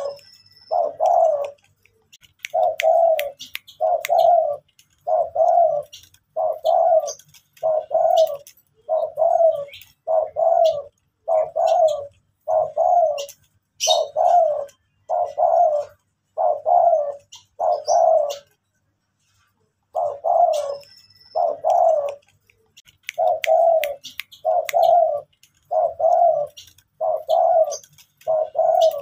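Spotted dove cooing: a long run of evenly spaced low coo notes, about one and a half a second, broken by a short pause about two-thirds of the way through.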